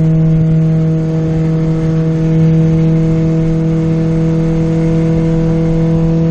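VW Golf R32's VR6 engine running at a steady speed under way, a constant drone that neither rises nor falls in pitch.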